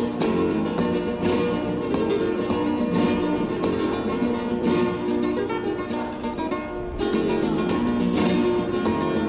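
Background music: acoustic guitar strummed and plucked in a flamenco style, with sharp repeated strums.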